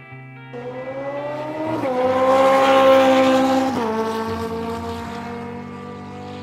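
Engine sound effect, in the manner of a motorcycle: it revs up, swells to its loudest about three seconds in, then drops in pitch and fades away as if speeding past.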